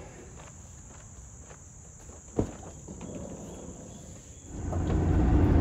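Insects trilling steadily at a high pitch, with a single knock about two and a half seconds in. Near the end, the low rumble of a van's engine and road noise rises.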